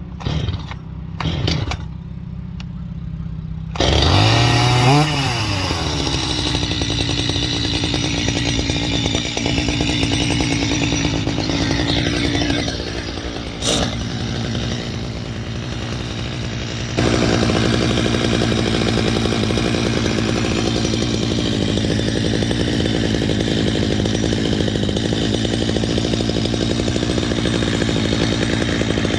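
Stihl chainsaw engine running. About four seconds in it revs up sharply, the pitch rising and then falling, and from about halfway through it holds steady at a higher, louder speed.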